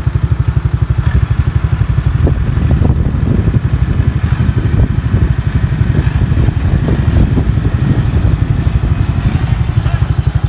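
An engine running steadily at a fast, even beat, with scattered clattering knocks through the middle and a faint high whistle that steps up in pitch twice and drops near the end.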